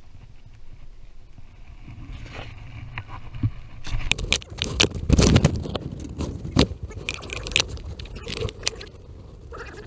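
Redfish thrashing as it is lifted from the water, with splashing, then flopping against the skiff's deck. A run of sharp slaps and knocks starts about four seconds in and is loudest just past five seconds.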